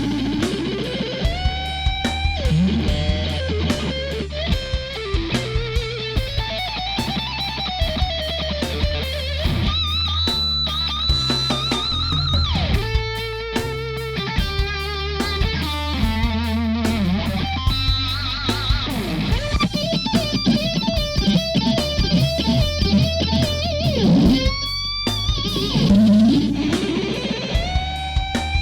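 Electric guitar solo through the Brainworx bx_rockergain 100 amp emulation, with bent notes and vibrato over a low bass line.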